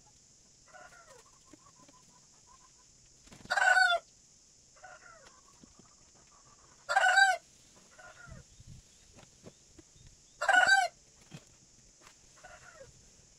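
Chickens calling: a loud, short, high call comes three times, about every three and a half seconds, with softer, lower calls in between. A steady high hiss runs underneath.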